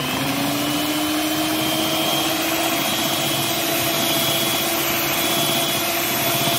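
Electric hand mixer running at a steady speed, its motor whining as the beaters whip fresh cream and condensed milk together. The pitch climbs slightly in the first second, then holds steady.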